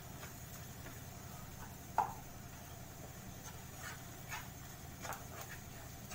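A wooden spatula scrapes and knocks against a kadhai while stirring a thick frying masala. There is one sharp knock about two seconds in and a few lighter scrapes later on, over a faint steady hum.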